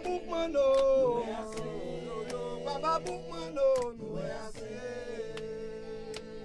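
A group of voices chanting together, holding long sustained notes, with sharp percussive hits at irregular intervals.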